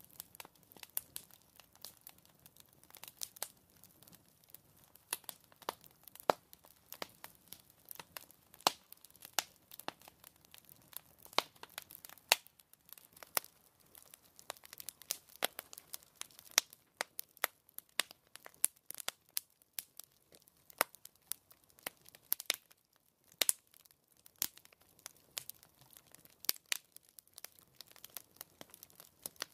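Crackling fire sound effect: irregular sharp pops and snaps, several a second, over very little steady noise.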